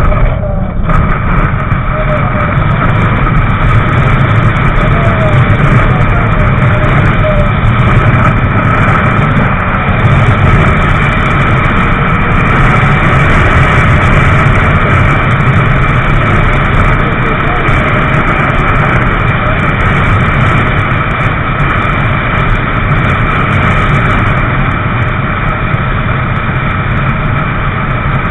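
Motorcycle riding at steady freeway speed: a constant engine drone buried under loud, steady wind rush on the microphone, with no changes in pace.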